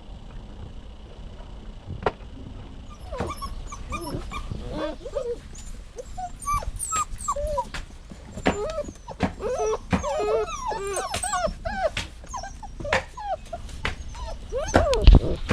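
Dog whining, a quick string of short high-pitched whimpers that rise and fall, starting about three seconds in. A few sharp clicks, and a loud knock near the end.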